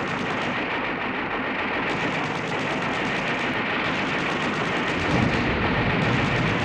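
Anti-aircraft guns firing rapidly and continuously, with a heavier low burst about five seconds in.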